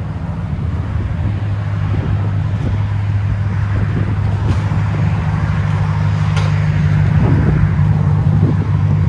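Dodge Ram 1500's 5.7L HEMI V8 idling through an aftermarket dual exhaust, a steady low rumble that grows gradually louder as the truck rolls slowly toward the tailpipes' listener.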